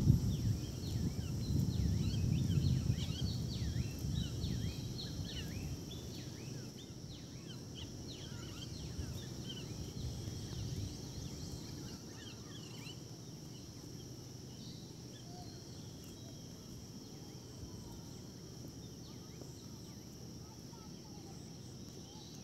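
Small birds chirping in short, quick calls, thickest in the first dozen seconds and then sparse, over a steady high hiss. A low rumble is loudest in the first few seconds and fades away.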